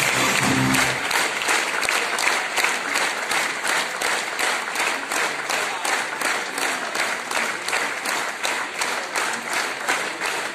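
Music cuts off about a second in, and a theatre audience applauds, the clapping falling into a steady rhythm.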